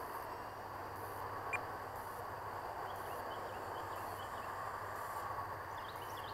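Steady faint outdoor background hiss, with short, high rising chirps coming in repeatedly from about halfway through.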